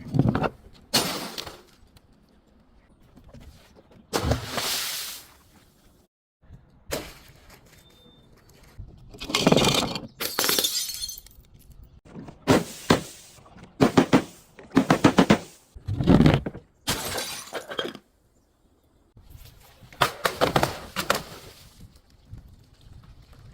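Glass bottles and other brittle objects being crushed and breaking: about eight separate bursts of crunching and shattering with short pauses between.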